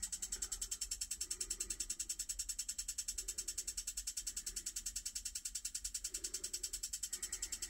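Rapid, steady clicking at about ten clicks a second from an Icom IC-756PRO III transceiver that will not power up. It keeps repeating instead of starting; the owner believes a failed diode is the cause.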